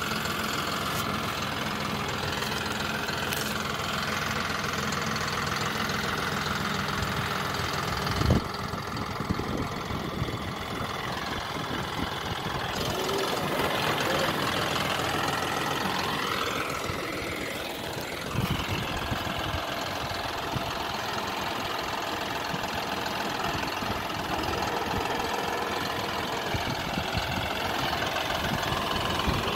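John Deere 5405 CRDi tractor's three-cylinder diesel engine running steadily while the tractor climbs a dirt mound, its pitch rising and falling briefly about two-thirds of the way through as the engine is worked. A single sharp thump sounds about eight seconds in.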